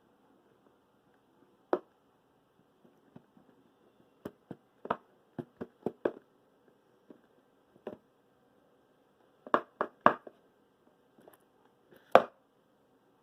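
Irregular knocks, taps and clicks from an object and its packaging being handled, several in a quick cluster near the middle and a sharper knock near the end.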